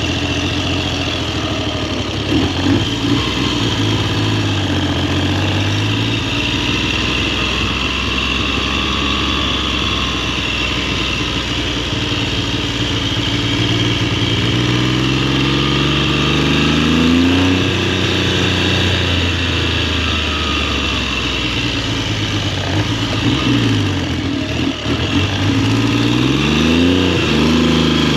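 1969 Triumph Trident's three-cylinder engine running under way on a test ride. The revs climb and drop back several times, mostly in the second half, as it accelerates and changes gear. Its carburettors are still out of balance.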